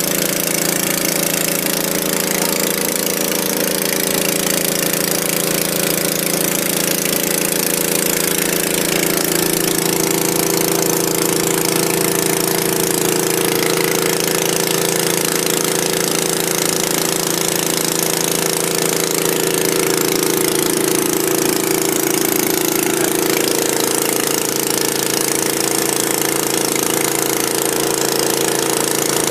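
Small engine on a building site running steadily at constant speed, a continuous machine hum that does not stop or change speed.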